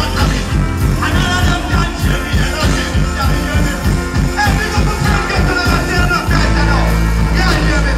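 Live dancehall music played loud through a festival sound system, a deejay's voice over a fast, heavy beat. About six seconds in, the drum pulses stop and a held bass note carries on.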